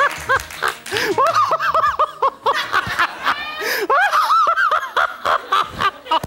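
A man laughing hard and fairly high-pitched, in runs of short ha-ha bursts with brief breaks for breath.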